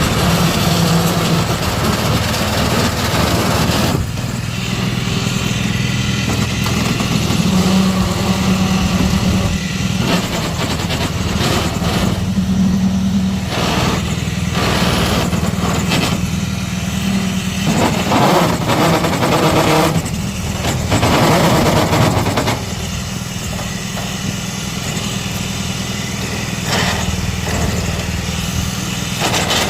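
Small engine of a portable concrete mixer running steadily, with stretches of louder rattling noise coming and going over it.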